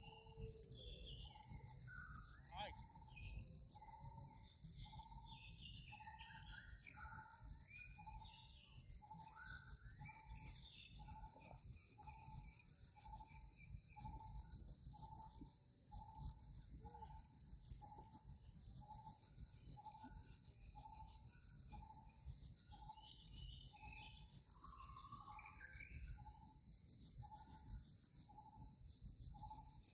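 Insects trilling loudly and steadily in a fast, high-pitched pulse, with short pauses every few seconds. Behind it a low note repeats about twice a second, among scattered bird chirps.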